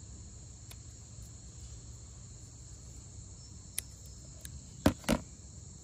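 Steady high-pitched insect chorus, with a few sharp clicks from scissors cutting and handling monofilament fishing line, the loudest two close together near the end.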